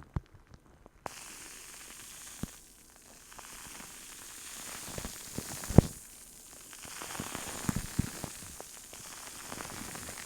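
Close-miked ASMR sounds: a few light taps, then from about a second in a steady crackly hissing rub, like fingers rubbing over the microphone, with scattered taps. The loudest tap comes a little past the middle.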